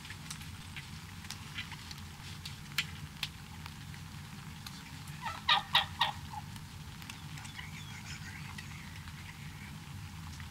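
Wild turkey tom gobbling once about halfway through, a short rapid rattling call. Scattered light ticks sound over a steady low rumble.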